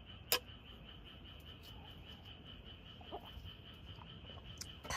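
A steady, high-pitched trilling night chorus of calling animals, the kind of frogs and insects heard around a summer campsite. About a third of a second in, a single short sharp clink, as of two cups tapped together.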